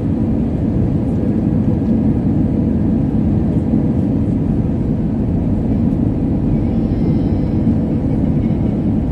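Steady cabin noise of an Airbus A320-family airliner on approach to land, heard from a window seat beside the engine: an even, low rush of jet engine and airflow with a faint steady hum.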